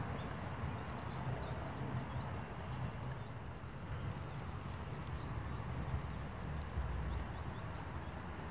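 Outdoor woodland ambience: a steady low rumble with short, faint bird chirps scattered through it.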